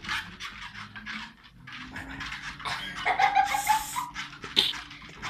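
Home treadmill running with two small dogs trotting on its belt: quick taps of paws and claws over the steady hum of the motor. A brief whine comes about three seconds in, the loudest moment.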